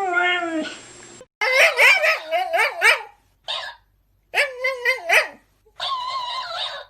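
A dog vocalising in the speech-like way of a 'talking' dog: a long drawn-out call that slides down in pitch and ends about half a second in, then a series of wavering howling and yipping calls with short pauses between them.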